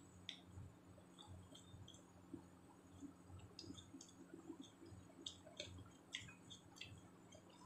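Faint chewing of a mouthful of raw salad vegetables (cucumber, carrot, leafy greens), with scattered small, sharp clicks.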